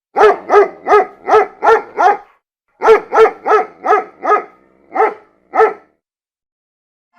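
A dog barking in quick runs: six barks, a short pause, five more, then two barks spaced further apart.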